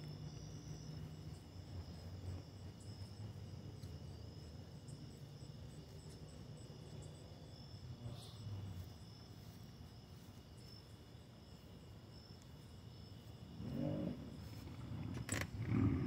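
Night insects chirping in a steady, high, pulsing chorus over a low hum of distant traffic. In the last couple of seconds a vehicle comes up, rising in pitch and growing louder, with a sharp click just before the end.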